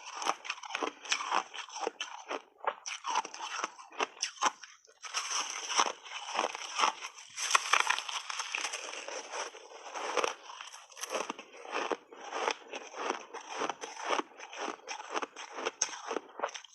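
Someone biting and chewing crunchy refrozen shaved ice: a rapid, irregular run of crisp crunches, densest for a few seconds in the middle.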